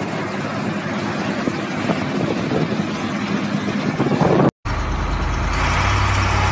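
Heavy diesel machinery. First a wheel loader works among loose rock, its engine running under load with rough noise and scattered knocks. After an abrupt cut a little past halfway, a heavy truck's diesel engine runs steadily and low-pitched.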